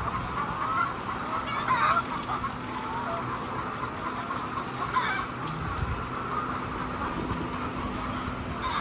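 A flock of laying hens clucking and calling together in a steady chorus, with louder squawks about two seconds and five seconds in. A steady low hum runs underneath.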